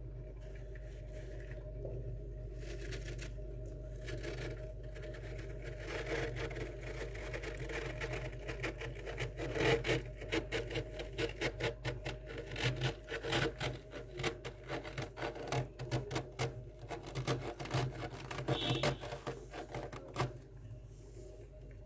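A bare hand scraping and scooping soft frost from a freezer compartment wall. Soft rubbing at first turns, about six seconds in, into a fast run of crunchy scratching strokes that eases off near the end. A steady low hum runs underneath.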